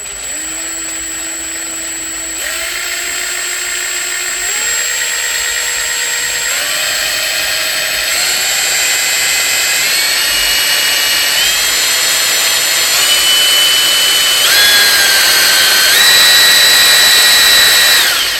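Kobalt 24-volt brushless 1/2-inch impact wrench spinning free with no load, its trigger squeezed further in stages: the motor whine steps up in pitch several times and gets louder, showing its variable speed, then cuts off at the end.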